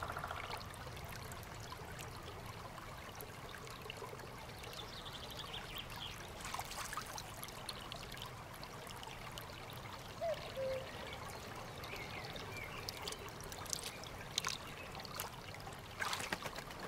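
Faint trickling, babbling water of a shallow mountain stream, steady throughout with small scattered clicks and splashes.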